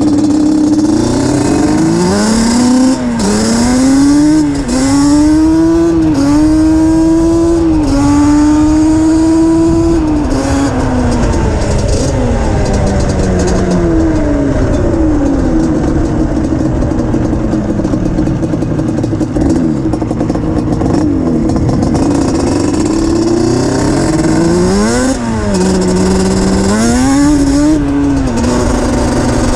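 Yamaha Banshee 350's twin-cylinder two-stroke engine on DMC Alien expansion-chamber pipes, accelerating hard through the gears. The pitch climbs and drops back at each shift several times in the first ten seconds, holds steady, falls away as it slows, then revs up again near the end.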